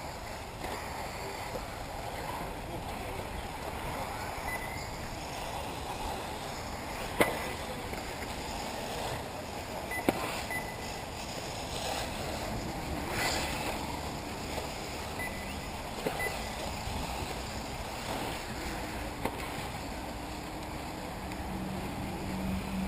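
Electric 1/8-scale RC off-road buggies racing on a dirt track, heard as a steady rushing noise with wind on the microphone. Two sharp clacks about three seconds apart stand out as the loudest sounds.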